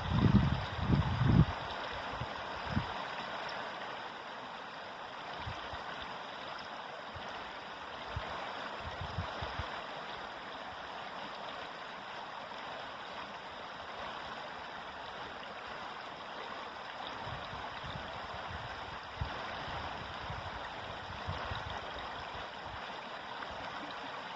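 A river flowing: a steady rush of water, with a few louder low bumps in the first second and a half.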